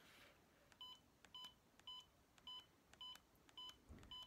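Saebo AvivaStim electrical stimulation unit beeping faintly as its increase-intensity button is pressed to step up the stimulation. It gives short beeps at an even pace of about two a second, seven in all, starting just under a second in.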